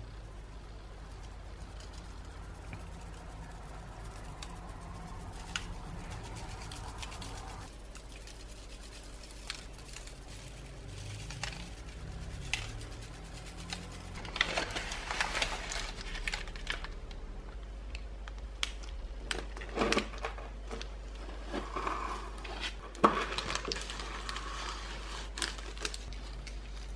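Small metal mesh strainer tapped and shaken to sift cookie crumbs, with parchment paper rustling and scattered sharp clicks over a steady low hum. The handling gets busier about halfway through.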